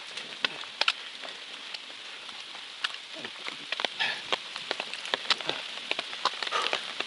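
Light rain hitting an open umbrella held overhead: a steady hiss with many sharp, irregular ticks of single drops striking the canopy.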